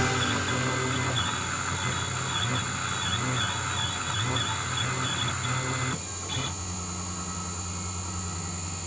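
Mini CNC 3020 router engraving: a steady high spindle whine over stepper-motor tones that shift in pitch in steps as the axes move.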